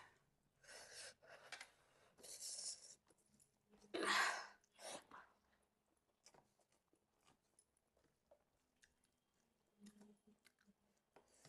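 A person eating and chewing food close to the microphone: several short noisy bursts of mouth sounds in the first five seconds, the loudest about four seconds in, then mostly quiet with faint chewing clicks.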